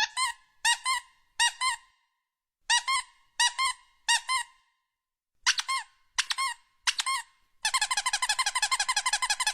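High-pitched squeaks, each a short rise and fall in pitch, coming singly or in twos and threes with pauses between. Near the end they break into a fast run of many squeaks a second.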